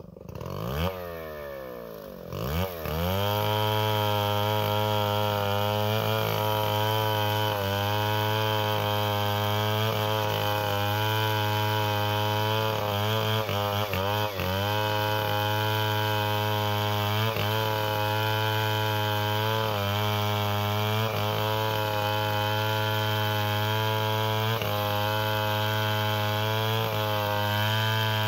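Stihl 070 two-stroke chainsaw revving up over the first few seconds, then running steadily at high revs through acacia wood, with a brief dip in pitch about halfway through.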